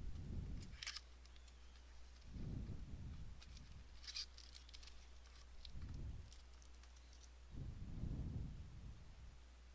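Faint handling of a trading-card box and its packaging: a few short, crisp rustles and clicks, with four soft low thumps spread through.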